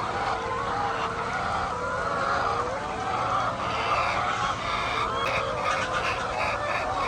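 A flock of poultry calling continuously, many birds' wavering calls overlapping.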